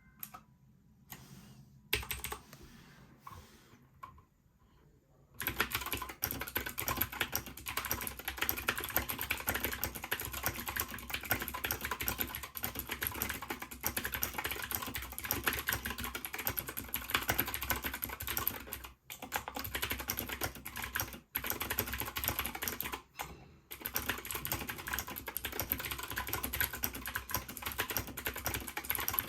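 Fast typing on a Keychron K2 mechanical keyboard with clicky Gateron G Pro Blue switches and PBT keycaps. A few scattered keystrokes give way about five seconds in to a dense, continuous run of clicks, broken by three short pauses.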